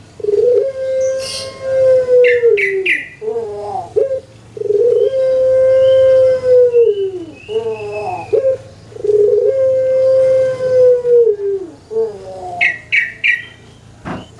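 Caged Barbary dove (Indonesian puter) cooing: three long drawn-out coos, each opening with a short stepped rising phrase, then a long steady note that sags at the end. Short bursts of higher small-bird chirping come twice between the coos.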